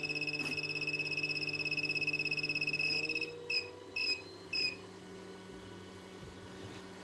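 An electronic beeper on bench repair equipment sounds one long, high, fast-pulsing beep that ends about three seconds in, then three short beeps. A low hum stops as the long beep ends.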